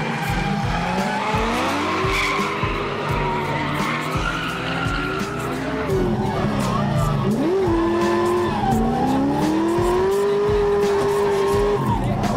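Drift car engines revving hard, pitch rising and falling, with tyres skidding and squealing; louder from about six seconds in. Background music with a steady beat underneath.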